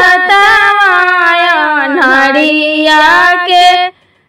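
A woman sings a Bhojpuri son's wedding folk song (beta vivah geet) solo, holding long notes that slide between pitches. The singing breaks off into a brief silence near the end.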